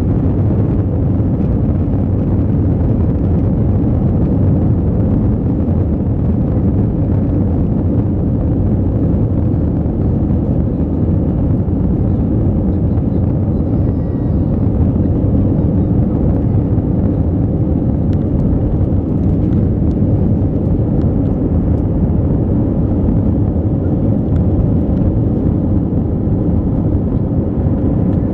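Steady rumble of a jet airliner's engines and airframe, heard from inside the cabin as the plane rolls slowly along the runway. The level holds even throughout, with no clear spool-up.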